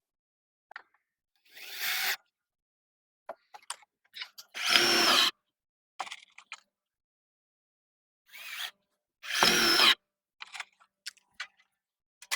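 Power drill driving screws into wood in several short runs, each lasting under a second, with small knocks and clicks of handling between them.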